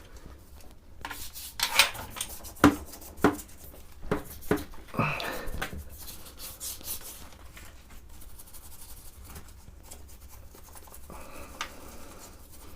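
Handling of a heavy vintage sewing machine in a small bathroom: a handful of sharp knocks and scrapes of metal and plastic in the first few seconds, then quieter rubbing and scrubbing.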